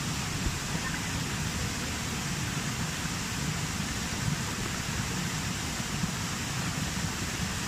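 Steady rushing of a small waterfall cascading over rock into a pool.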